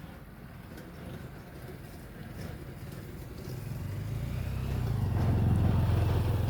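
Engine of a tractor working a hay baler, a low steady drone that grows louder from about three and a half seconds in as the machine draws near.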